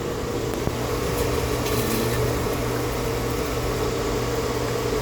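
Pool pump motor running with a steady hum. The pump is sucking air through a leak in the copper suction plumbing, so it fills with air bubbles and moves little water.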